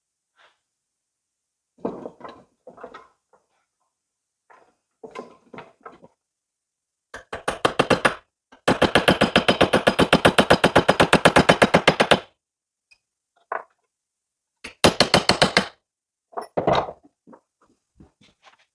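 Impact wrench hammering in rapid bursts of about eleven blows a second on a stubborn, tight part of a backhoe stabilizer cylinder: a one-second burst, a longer burst of about three and a half seconds, then a short one near the end. Single metal clanks and knocks come between the bursts.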